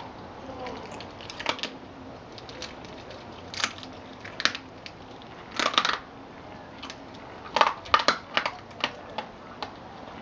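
Collie chewing a raw rabbit, crunching its bones: irregular sharp crunches in small clusters, loudest around six and eight seconds in.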